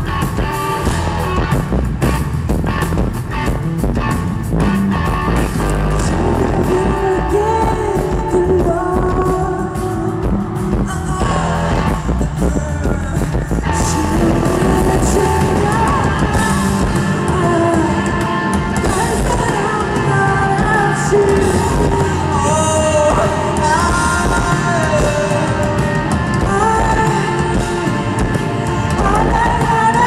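Live rock band playing through a festival PA, with a woman singing over electric guitar and the band.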